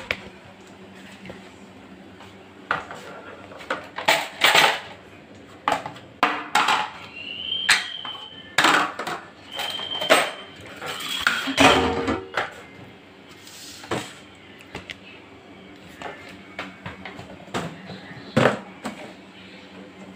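Stainless steel kitchen utensils, pots and plates clattering and clinking as they are handled and set down on a countertop, in irregular knocks with a few brief metallic rings.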